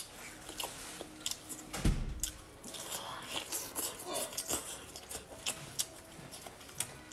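Close-miked chewing of sauce-coated seafood: wet mouth sounds with many short, sharp crunches, and one low thump a little under two seconds in.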